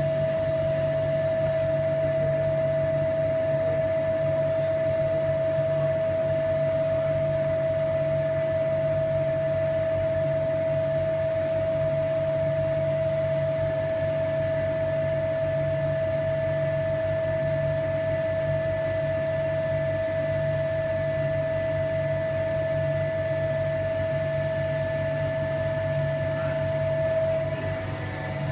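Vacuum pump running steadily, holding vacuum on a resin-infusion bag: a constant pitched tone over a low hum, dipping briefly near the end.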